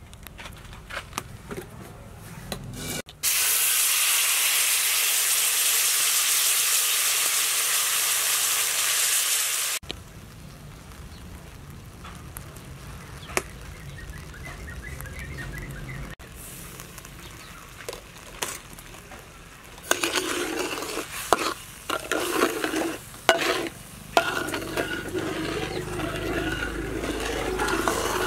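Liquid sizzling loudly in a hot metal wok, starting and stopping abruptly. From about two-thirds of the way through, a metal ladle stirs and scrapes around the wok in repeated strokes.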